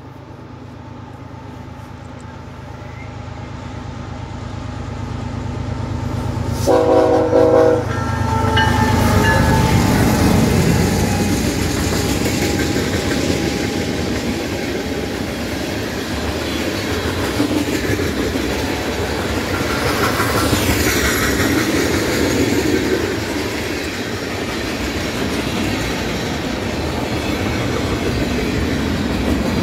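BNSF manifest freight train at track speed. The diesel locomotives' rumble grows as they approach, and a short train-horn blast sounds about seven seconds in. Then a long string of tank cars and boxcars rolls past, steel wheels clicking over the rail joints.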